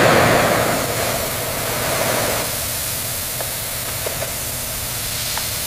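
Loud, steady hiss of steam escaping from pipework. It is sharpest at the start and eases a little after about two seconds, with a few faint ticks later on.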